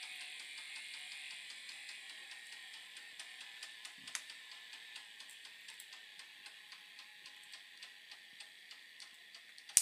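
K'nex electric motor running its geartrain to pull a coaster's launch car backwards, a steady high whine that slowly fades. From about three seconds in it clicks about twice a second, and there is one sharp click at the very end.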